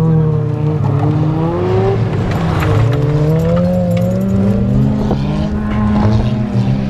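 Engines of several old wreck-race cars revving hard as they race and slide around a dirt track, their engine notes overlapping and rising and falling as the drivers lift off and accelerate through the corners.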